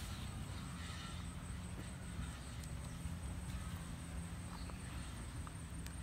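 Close-up mouth sounds of a person chewing food, with a few faint soft clicks, over a steady low hum.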